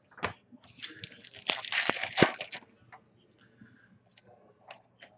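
A foil trading-card pack wrapper being torn open and crinkled: a sharp click, then about two seconds of crisp crackling, followed by a few light ticks of cards being handled.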